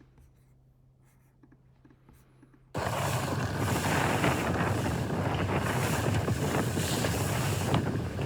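Nearly silent for the first few seconds, then loud wind buffeting the microphone and water rushing past a moving motorboat cut in suddenly and carry on steadily.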